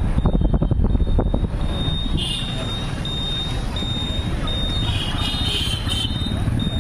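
Vehicle running with a heavy low rumble, wind buffeting the microphone in the first second or so, and a short high electronic beep repeating steadily about every 0.7 s from a vehicle's warning beeper.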